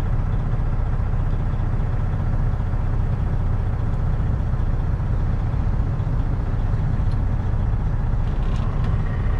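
Semi truck's diesel engine heard from inside the cab, a steady low drone as the truck slowly brakes to a stop.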